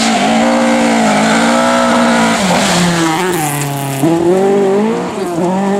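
Rally car engines running at high revs on a gravel stage. The pitch drops about two and a half seconds in and climbs again after about four seconds.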